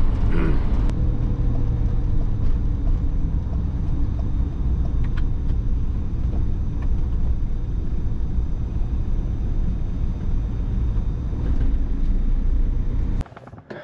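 Steady low rumble of a campervan's engine and tyre noise heard inside the cab at motorway speed, with a faint steady whine over it. It cuts off suddenly near the end.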